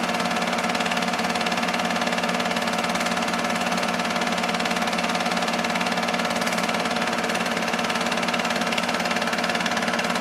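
Film loop projector running: a steady mechanical whirr with a fast, even chatter from the film advance and a constant motor hum.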